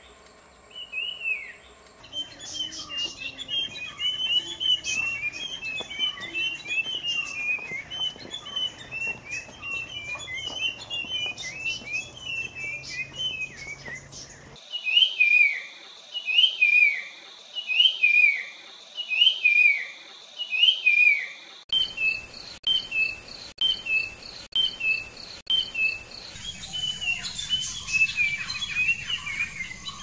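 Puff-throated babbler calling, across several spliced recordings. There are busy runs of short whistled notes, and in the middle stretch loud, clear whistles that each fall in pitch, about one a second.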